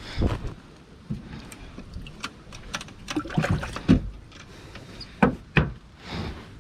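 Scattered knocks and clunks on a fishing boat as gear and the catch are handled, with some faint water sounds. The loudest knocks come shortly before the midpoint and twice more a little after it.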